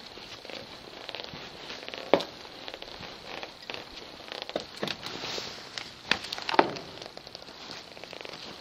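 Footsteps with irregular crunching and crackling underfoot, and a few louder snaps: one about two seconds in and two around six seconds in.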